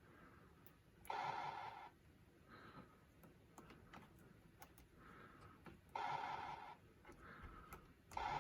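Electronic test tones from a pinball test rig's sound output while the MPU board runs its diagnostics. A buzzy beep just under a second long sounds about a second in, again about six seconds in, and again near the end, with fainter, shorter beeps between them. A few faint clicks are also heard.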